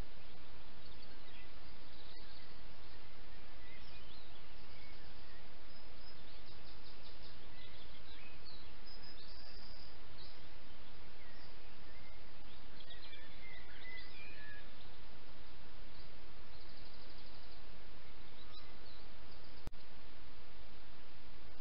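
Birds chirping and trilling intermittently over a steady hiss. Near the end there is a brief dropout with a click, where one camera clip ends and another begins.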